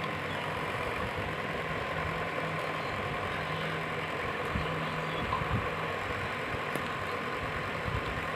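Electric table fan running steadily, a smooth even whir with a faint motor hum and no rattle. Its knocking rattle has been cured by tightening loose parts.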